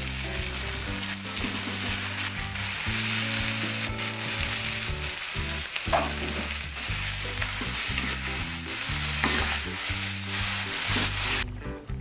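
Mushrooms and noodles frying in a pan, a steady loud sizzle with a few sharp knocks. The sizzle cuts off suddenly near the end.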